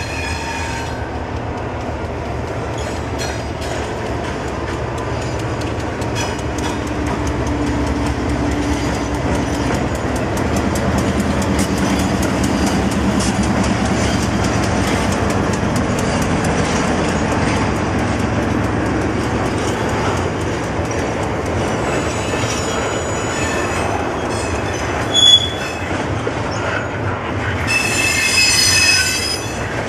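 BNSF diesel locomotives running past close by, the horn's last note cutting off about a second in, followed by double-stack intermodal container cars rolling past with steady wheel clatter. A sharp loud clank comes about five seconds before the end, and a high wheel squeal near the end.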